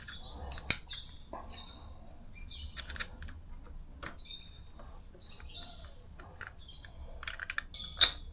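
Hand tools working on a motorcycle spark plug: scattered metal clicks and clinks as a 16 mm plug socket and toolkit wrench loosen and draw out the plug, the sharpest click near the end.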